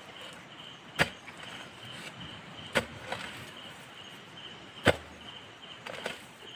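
A long pole jabbed hard into a mud crab burrow, striking three times about two seconds apart, the last strike the loudest. A steady high insect trill goes on underneath.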